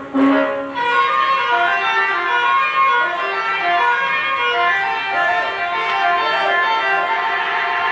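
Bus telolet horn, a multi-tone musical air horn, playing a fast tune of short notes that change pitch quickly, after a held chord in the first second.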